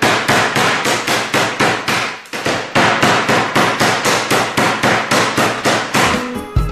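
Wooden meat mallet pounding a slice of boneless pork loin through plastic food film on a cutting board, flattening it into a thin schnitzel. Quick, even blows, about four a second, with a brief pause about two seconds in.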